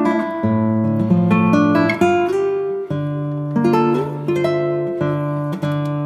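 Background music played on acoustic guitar.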